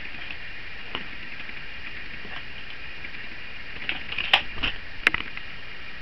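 Kitten scrambling down out of a hanging fabric shelf over books and papers: a short flurry of knocks and rustles about four seconds in, with two sharp clicks, over a steady faint hiss.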